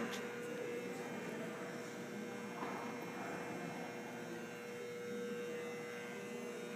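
Steady electrical hum, a single held tone, over faint room noise.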